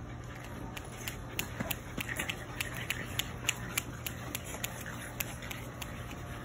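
French bulldog puppies play-fighting on dry dirt, making an irregular patter of small sharp clicks and scuffles over several seconds.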